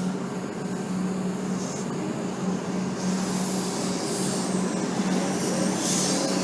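Comeng electric suburban train pulling away from the platform: a steady hum with running noise from the wheels on the rails, and a hiss that grows louder near the end.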